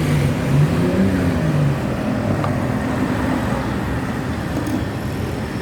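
Steady road traffic noise. A vehicle engine's low hum wavers in pitch for the first couple of seconds, then fades into an even rumble.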